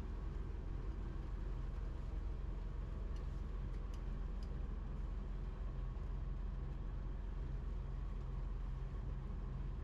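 Sailboat's inboard diesel engine running steadily with a low drone as the boat motors along, with a few faint clicks about three to four seconds in.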